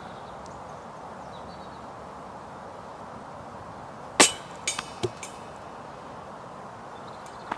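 A disc golf disc strikes the metal chain basket with one sharp clank and a short rattle about four seconds in, bounces out, and drops onto the snow with a soft knock.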